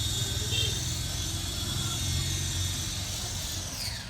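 Electric motor and rotor blades of a 3D-printed RC helicopter running, with a high motor whine over a low rotor beat. Near the end the whine falls in pitch as the motor spools down.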